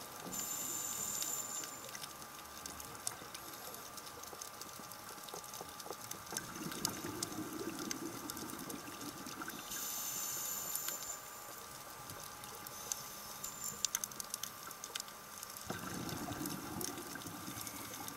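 Scuba diver's regulator breathing underwater: a hissing inhale near the start and another about ten seconds in, each followed by a long bubbling exhale. Scattered sharp clicks and a faint steady whine run underneath.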